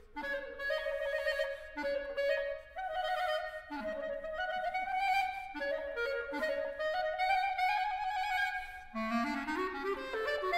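Solo clarinet in a contemporary clarinet concerto, playing a slow line of held notes that moves between the middle and low registers. About nine seconds in it climbs in a quick rising run.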